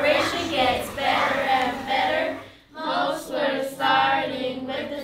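A group of voices singing together in held notes. They break off briefly about two and a half seconds in, then sing on.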